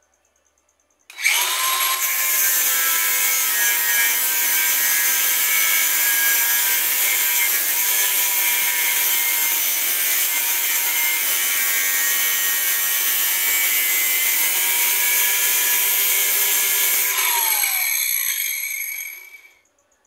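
DeWalt cordless angle grinder with a cut-off disc starting up about a second in and cutting through a rusted steel bearing on a washing-machine transmission shaft: a steady high whine over harsh grinding. Near the end it is switched off and spins down with a falling whine.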